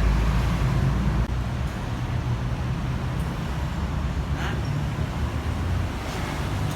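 Low rumble of a vehicle engine running, dropping a little in level about a second in. No siren is sounding.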